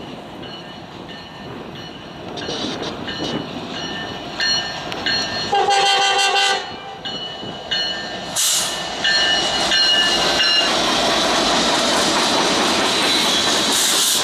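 An EMD SD70ACe diesel locomotive's air horn sounding a series of blasts, the longest and loudest about six seconds in. From about ten seconds in, the locomotive's engine and wheels run loud and steady as it passes close by.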